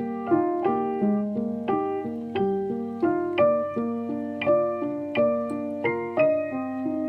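Background piano music: a gentle melody of struck notes over sustained chords at an unhurried, even pace.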